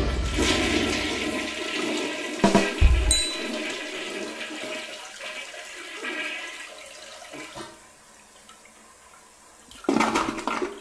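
Toilet flush: a rush of swirling water that slowly fades away over about eight seconds, with a couple of low thuds a few seconds in and a short louder burst of noise near the end.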